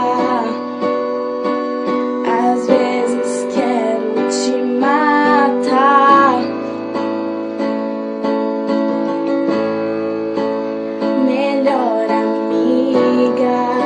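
Pop song with piano and guitar accompaniment, a female voice singing short wordless vocal lines over it.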